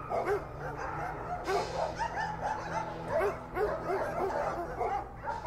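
Several dogs barking over one another again and again, their barks at different pitches.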